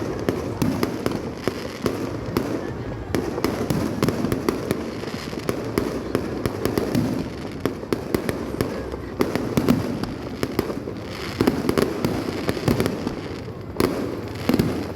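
Fireworks display: a dense, unbroken run of bangs and crackles, with a few sharper, louder bangs standing out.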